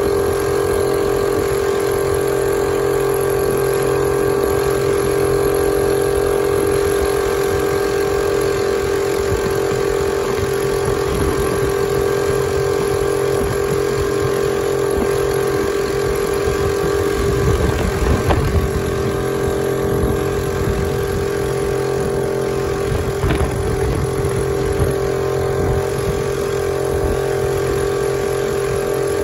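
Honda 2 hp air-cooled four-stroke outboard motor running steadily under way at a constant throttle, pushing a heavily loaded boat. A brief low rumble comes in partway through.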